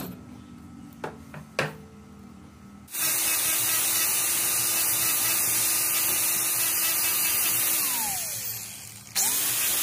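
Two short clicks, then a handheld electric power tool switches on with a steady hissing rush and motor hum. Near the end it winds down with a falling whine, stops briefly and starts up again.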